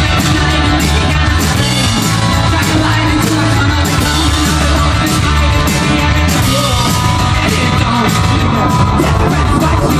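Rock band playing live through a PA: electric guitars and a drum kit keeping a steady beat, with a voice singing.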